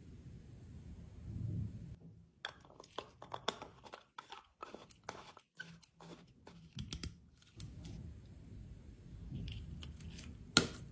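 Close-up handling of small objects: low rubbing, then a quick run of sharp clicks and scrapes for several seconds, with one loud click near the end.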